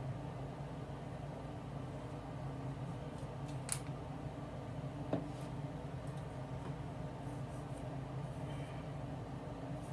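Steady low room hum, with two light clicks about four and five seconds in.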